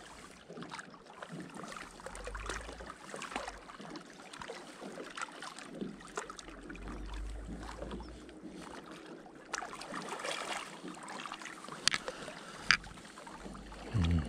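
Water lapping at the lake's edge, with scattered small ticks and handling clicks during a slow lure retrieve. Now and then there is a low rumble of wind on the microphone.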